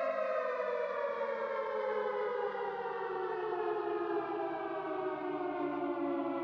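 Civil defense siren winding down: one long wailing tone whose pitch falls slowly and steadily.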